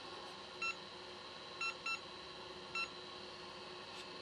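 Four short electronic beeps from a hot-air soldering station, the second and third close together, over a steady faint hiss.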